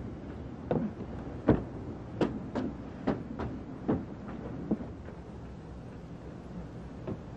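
Irregular knocks and thumps, roughly two a second, from a door and footsteps on a porch. They thin out after about five seconds.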